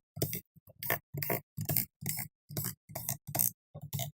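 Screwdriver backing the screws out of a laptop's bottom cover: a string of short clicking bursts, about two to three a second.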